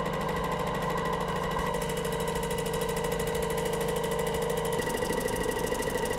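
Wagner SF23 Plus airless paint sprayer running, its pump pushing the leftover flush water out of the hose and gun so the lacquer can come through. A steady machine hum with a fast, even pulsing, whose pitch and rhythm change about five seconds in.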